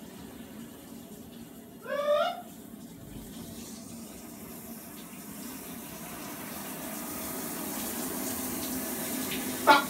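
A steady rushing noise that grows slowly louder through the second half. About two seconds in comes a short rising, wavering squeal.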